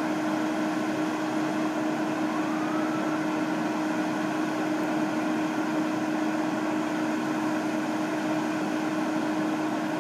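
Fire engine's diesel engine running steadily, a constant hum over an even rushing noise.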